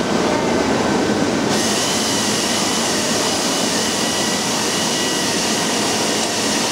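Steady factory-floor machinery noise. About a second and a half in, a brighter hiss joins it with two faint steady whistling tones and runs on.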